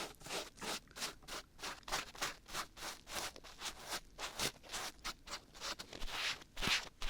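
Dried glue being picked and peeled off the silicone ears of a 3Dio binaural microphone: a quick run of short, crackly scratching and peeling strokes, about three or four a second, right at the ear.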